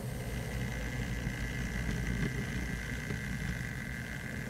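Model train running on the layout: a steady low rumble of wheels on the rails and motor hum, with a steady high-pitched whine that sets in right at the start.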